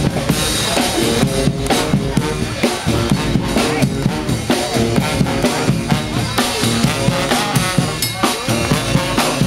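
A street marching band playing: drums beating a steady rhythm under horns playing a tune.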